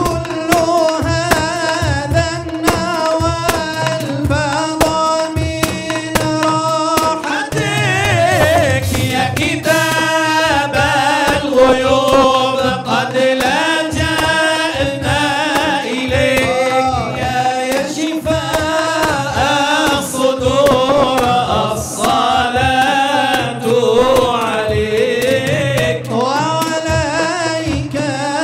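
Male voices singing a devotional Arabic qasidah into microphones, with long ornamented, gliding melodic lines, the lead passing between two singers. A hand-struck frame drum keeps a steady beat underneath.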